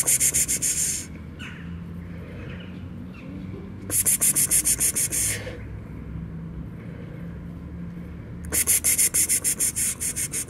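A person calling a cat with a rapid 'pspspsps', three bursts of about a second and a half each: at the start, about four seconds in, and near the end. A faint low hum runs between the bursts.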